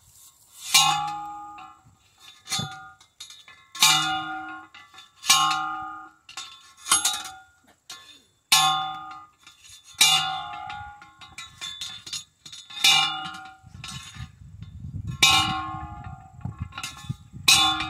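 Manual post driver pounding a steel T-post into the ground: a steady series of loud metal clangs, about one every second and a half, each ringing on briefly.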